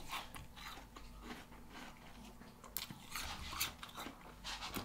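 A dog chewing, with faint, irregular crunches and clicks.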